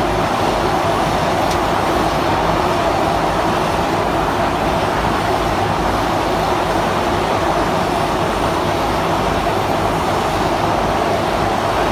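Cat 432F2 backhoe loader running steadily, its diesel engine and hydraulics driving a QST3000D hydraulic chainsaw attachment.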